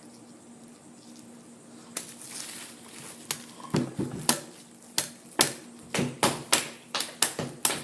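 Sharp taps and knocks drummed out as an improvised beat, starting about two seconds in and settling into roughly three or four hits a second.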